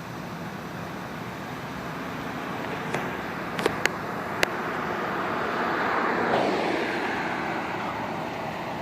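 Road traffic noise, with a vehicle passing that is loudest about six seconds in. A few short, sharp clicks come between three and four and a half seconds in.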